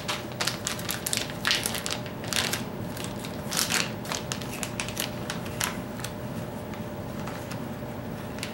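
Crinkling and crackling of a plastic bag of soft plastic fishing baits being handled and opened to take a bait out, in irregular bursts that thin out after about six seconds.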